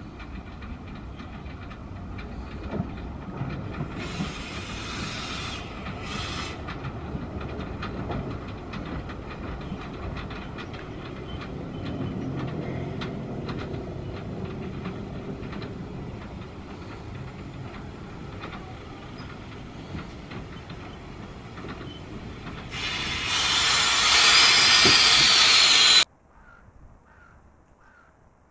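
Small tank steam locomotive running slowly in with its carriages, wheels clicking over the rails, with short bursts of steam hiss about four to six seconds in. Near the end a loud hiss of steam rises and then cuts off suddenly.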